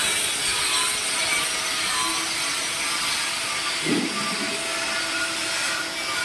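Welding arc burning steadily on a pipe joint, giving a continuous hiss.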